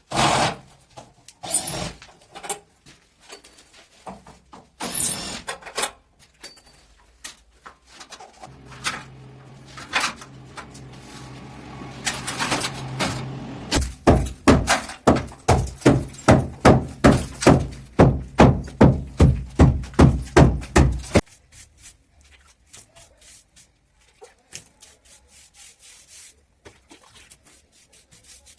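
Renovation work: scattered knocks and scrapes, then a steady low hum with a run of regular knocks, about two to three a second, that stops suddenly about three quarters of the way through.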